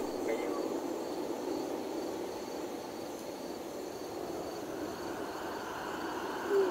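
Steady road and engine noise inside a moving car's cabin, with a faint steady high-pitched tone above it. A short, louder low tone sounds just before the end.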